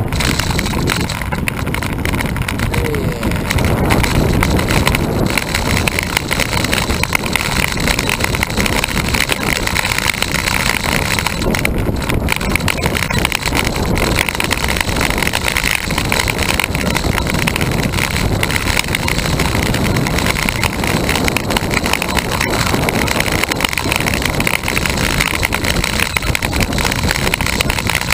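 Steady rush of wind on the microphone mixed with tyre and road noise from a road bicycle riding along a paved road.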